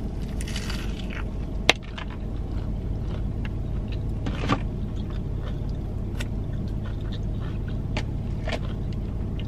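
Biting into and chewing a crispy fried chicken sandwich: crunches and a few sharp clicks, the loudest one a little under two seconds in. A steady low hum runs underneath, inside the car's cabin.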